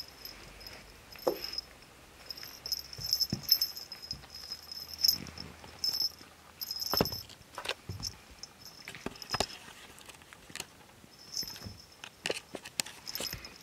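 Two tabby kittens play-fighting on carpet: scuffling, rustling and soft thumps as they roll and wrestle, with a high jingle coming and going.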